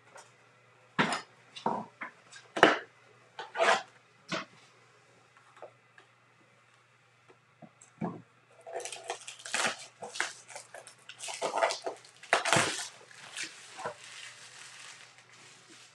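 Cardboard trading-card retail box being handled and opened: a few sharp scrapes and taps, then from about nine seconds in a longer run of crinkling and tearing as the box is torn open.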